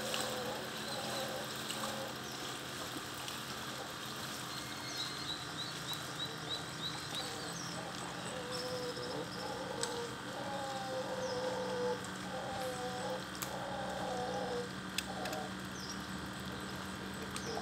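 Mantled howler monkey howling: a run of drawn-out calls broken by short pauses from a little under halfway through to about three-quarters through. Small birds chirp in quick series high above it in the first third.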